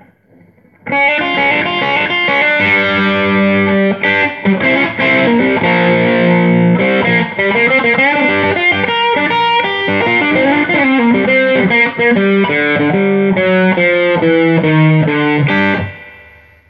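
Les Paul-style electric guitar played through a Fulltone OCD overdrive pedal: overdriven riffing that starts about a second in and stops shortly before the end, ringing out briefly.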